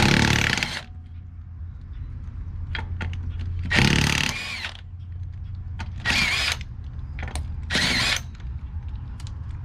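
Handheld power tool spinning lug nuts off a car wheel in four short bursts, the motor pitch wavering in each, under a steady low hum.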